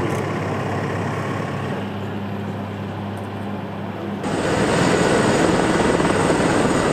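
Helicopter turbine running steadily, a low hum under a broad rushing noise. About four seconds in, it abruptly grows louder and a high, even whine comes in.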